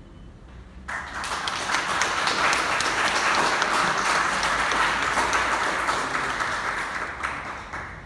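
Audience applauding, starting suddenly about a second in and dying away near the end.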